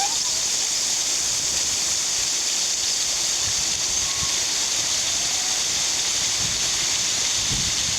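Waterfall on Greenlaw Brook rushing steadily: an even, unbroken hiss of falling water.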